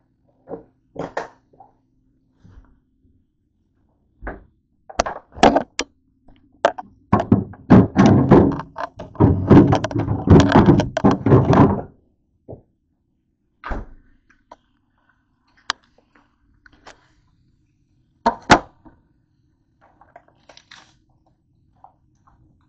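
Handling noise from the camera being picked up, moved and set down: a run of knocks and rubbing thumps, loudest and densest in a burst lasting several seconds before the middle, then a few scattered clicks.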